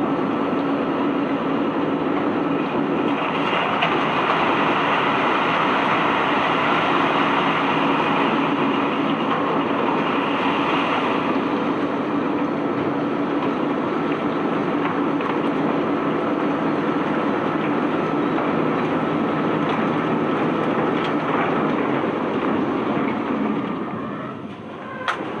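Cobblestones being unloaded from a barge: a steady rattling rumble with a constant machinery hum underneath, which dies away near the end, followed by a sharp click.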